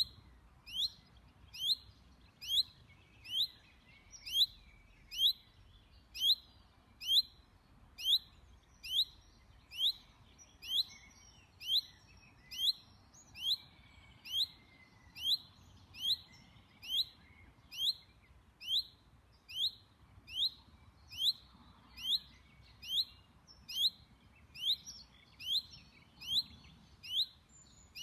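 Chaffinch repeating a single short call in a monotonous series, a little faster than one note a second, each note falling in pitch.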